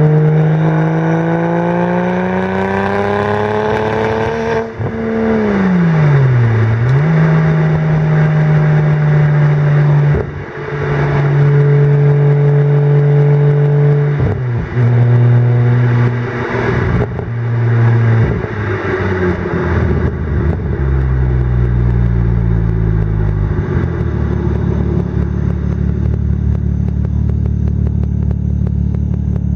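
Single-turbo BMW 335i's turbocharged inline-six through a VRSF exhaust, pulling with its note rising for about four seconds, then lifting off so the pitch falls. It runs steady at constant throttle with a few brief lifts, then the pitch steps down as it slows and settles into a steady lower drone.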